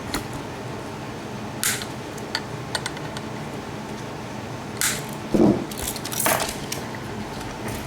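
Small metal parts and tools being handled: scattered light clicks and clinks, with a duller, louder knock about two-thirds of the way through.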